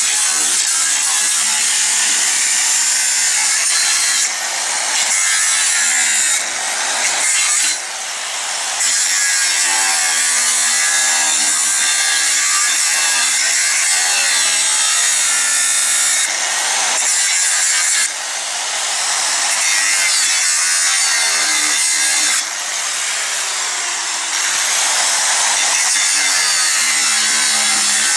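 Angle grinder with a cutting disc cutting 6 mm steel plate: a loud, continuous high-pitched grinding that eases off briefly about six times.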